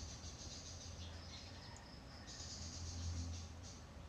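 Quiet room tone: a faint steady low hum with a thin hiss, and no distinct sounds.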